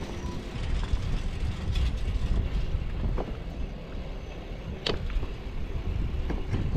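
Wind rumbling on the microphone of a moving bicycle, with the bike and its wire handlebar basket rattling over a concrete road and a few sharp clicks, the loudest about five seconds in.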